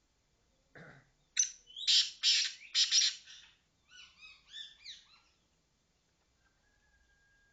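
Francolin (teetar) calling: three loud harsh notes, then a quicker run of shorter rising notes, ending about five seconds in.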